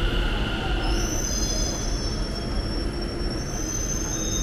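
Delhi Metro train pulling in along the platform and slowing, with a low rumble and a thin, high-pitched wheel squeal that sets in about a second in and rises again near the end.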